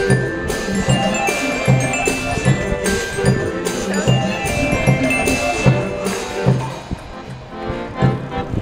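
Instrumental music with a steady beat: repeating low bass notes under regular percussive hits and bright, chiming mallet-like notes. It thins out and drops in level near the end.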